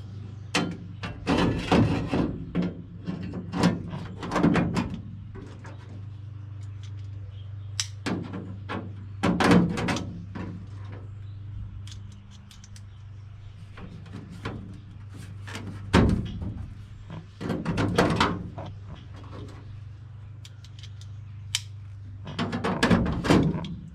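Irregular clicks, clanks and knocks of a sheet-steel floor panel being fitted into a car body and pinned with cleco fasteners, over a steady low hum.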